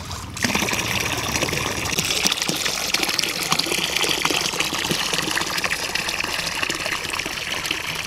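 Water running and splashing steadily, starting about half a second in.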